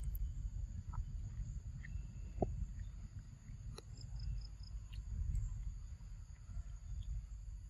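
Insects, crickets or cicadas, keeping up a steady high-pitched drone over a low rumble of wind on the microphone, with a few faint clicks.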